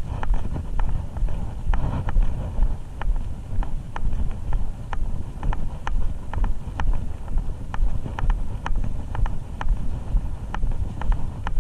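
Footsteps of someone walking steadily, with wind and movement rumbling on the microphone and light sharp clicks about twice a second.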